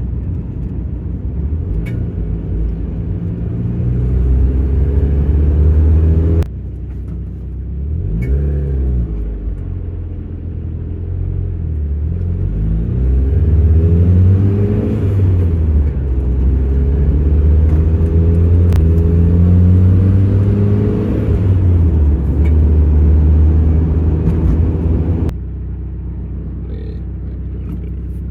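Mazda Miata's four-cylinder engine and drivetrain under way, engine pitch rising and falling with throttle, with a few sharp pings standing out now and then. The pings come from a worn rear driveshaft U-joint by the differential.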